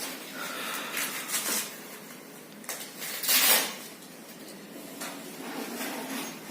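Swishing and rustling of a synthetic sleeping bag being unrolled and handled, in short bursts, with one longer, louder swish about halfway through.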